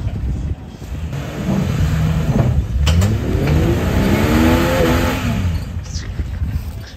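Off-road Jeep's engine revving in two swells, its pitch rising then falling each time, as it climbs a rock ledge under load. A sharp knock comes about three seconds in.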